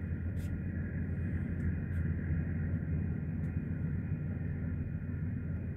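Level crossing warning bells ringing steadily over a constant low rumble.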